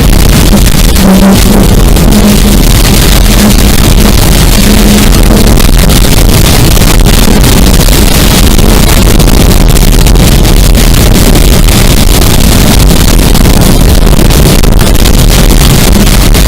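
Loud, steady rushing roar of a moving chase vehicle, with wind noise hitting the microphone and the recording pushed close to its limit; a faint pitched hum comes and goes in the first few seconds.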